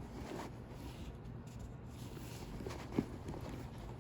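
Faint rustling and handling of items inside a handbag, with one light knock about three seconds in.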